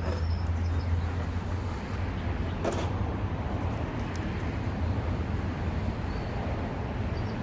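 Steady low hum of a large crowd of honeybees around an open hive, with one brief click partway through.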